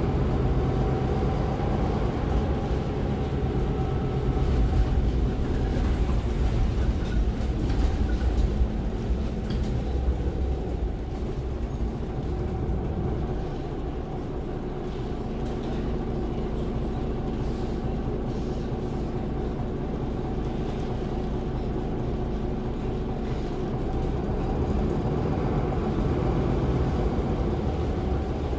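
Cabin ride noise of a MAN NL283 Lion's City city bus under way: the diesel engine and tyres rumble steadily, with a few knocks in the first several seconds. The rumble eases about halfway through and builds again near the end.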